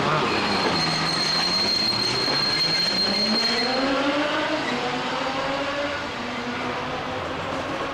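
Diesel-hauled train heard from an open carriage window. The engine note climbs in pitch for about four seconds as the train picks up speed, then holds steady. A thin, high, steady whine runs through the first few seconds.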